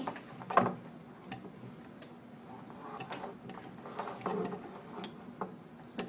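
Electrode cable being pulled by hand through the tubular body of a PR10 retractable probe holder: soft rubbing with scattered light clicks and knocks, one sharper click just after the start.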